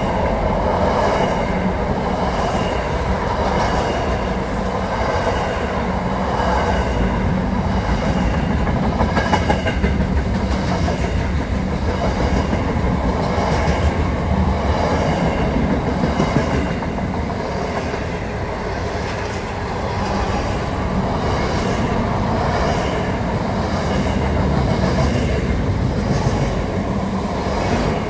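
A freight train's container wagons rolling past at speed, a steady rumble with the clickety-clack of wheels over the rail joints.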